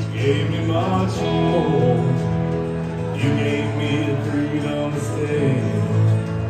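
Acoustic guitar strumming under a fiddle playing the melody: an instrumental break in a country song.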